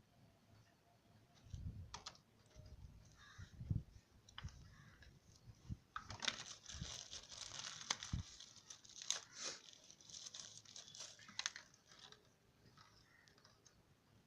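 Packaging being torn open and crumpled by hand, with scattered knocks and clicks of handling; a longer stretch of dense tearing and crinkling comes about six to nine seconds in.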